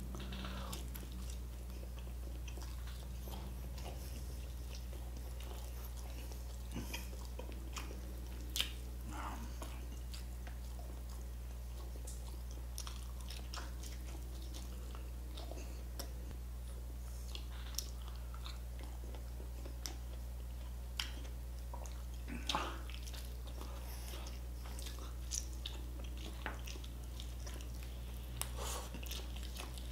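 Close-up eating sounds: a man biting, chewing and sucking his fingers on hand-torn roast chicken, with scattered wet mouth clicks and smacks over a steady low hum.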